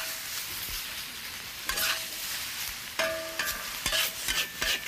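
Stir-fry in a hot wok: noodles and vegetables sizzling steadily while a metal wok spatula scrapes and clanks against the pan several times, each stroke ringing briefly.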